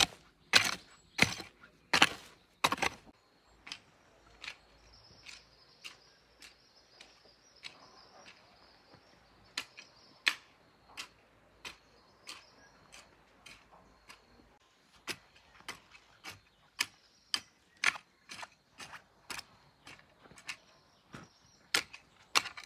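A hand hoe chopping into dry garden soil in a steady rhythm, about two strokes a second. The strokes are loud and close at first, fainter through the middle, and stronger again for the last several seconds.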